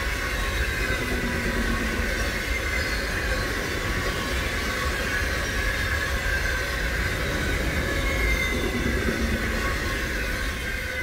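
Covered grain hopper wagons of a freight train rolling past at speed: a steady rolling noise with high, slightly wavering ringing tones from the wheels. The sound starts to fade near the end as the last wagon passes.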